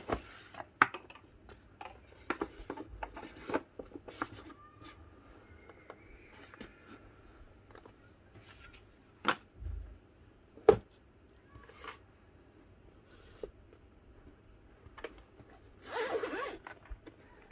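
Cardboard packaging being handled: scattered light taps, knocks and rustles of the box and its molded paper insert. Near the end there is a longer scraping rustle as the fabric-covered headphone case is picked up.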